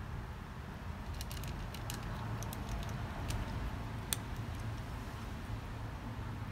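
Cat crunching dry kibble from a plastic tray: a scatter of small crisp clicks, the sharpest a little after four seconds in, over a steady low background rumble.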